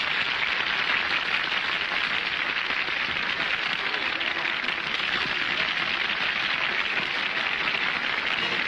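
An audience applauding steadily, a dense, even clatter of many hands with no music under it.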